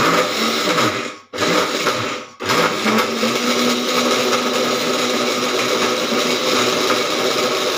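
Electric mixer grinder with a stainless-steel jar grinding soaked urad dal with green chilli, ginger and salt into a thick batter with no water added. It runs in two short pulses of about a second each, then steadily for about five seconds.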